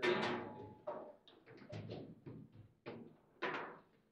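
Table football play: a quick, uneven series of sharp knocks and clacks as the player figures strike the ball and the rods are slammed. The loudest knocks come right at the start and again about three and a half seconds in, during a rally that ends in a goal.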